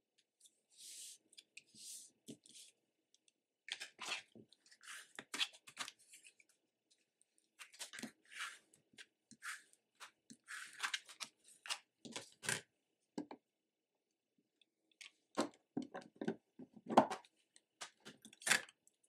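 Crafting handling noise on a cutting mat: short rustles and scrapes of paper being pressed and rubbed down by hand and with a plastic scraper. In the last few seconds come sharper knocks as a clear plastic box of stickers is handled and set down, the loudest about two seconds before the end.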